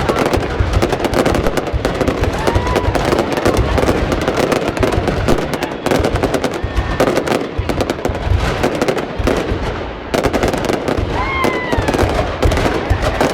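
Fireworks going off in a rapid, continuous volley of crackling pops, with a few short rising-and-falling tones toward the end.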